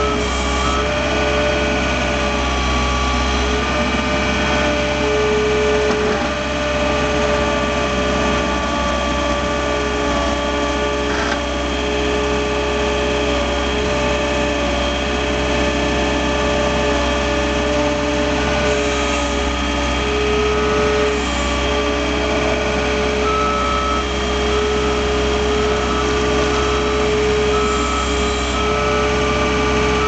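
A John Deere 320 skid steer loader's diesel engine running steadily under load while it pushes snow, heard from inside the cab, with a regular beeping in the last several seconds.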